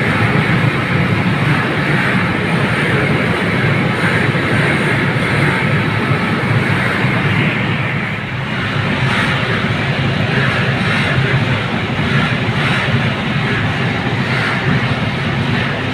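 Large ventilation blower running, a steady loud rush of air with fan and motor noise close to its louvered grille.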